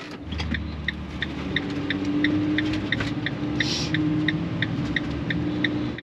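Ram ProMaster van pulling away, its engine running under the cab, with a short electronic beep repeating about three times a second throughout.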